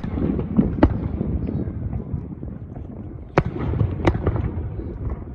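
Aerial fireworks shells bursting: four sharp bangs in two pairs, one pair at the start and the other a little past the middle, over a low, continuous rumble of further bursts.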